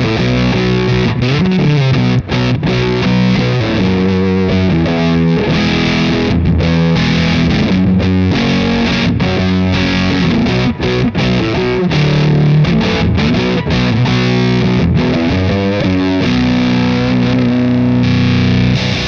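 Electric guitar played through a Fender Shields Blender fuzz pedal, octave-up switched off: a thick, fat fuzz tone on sustained chords and riffs, with brief breaks between phrases.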